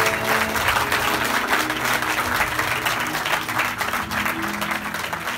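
Audience clapping by hand, a dense patter of applause over background music with sustained notes; the applause begins to die down near the end.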